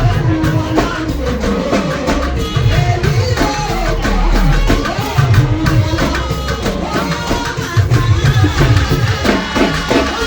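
Music with a driving drum beat and voices singing, typical of a Nigerian-style church praise song.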